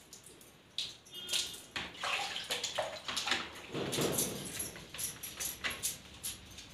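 Water splashing and dripping onto a concrete floor in irregular splats as long wet hair is rinsed and lathered by hand, with a plastic mug dipping into a bucket of water around the middle.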